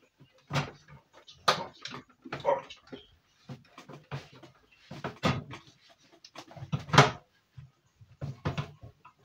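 Irregular knocks, clicks and rattles of computer parts being handled and set down on a desk as an old PC is taken apart, with several sharper knocks around the middle and near the end.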